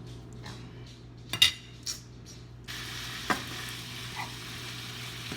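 Ground beef browning in a dry pan, starting to sizzle: a steady sizzling hiss comes in about halfway through. A utensil stirs and clinks against the pan a few times before that, one sharp clank being the loudest sound.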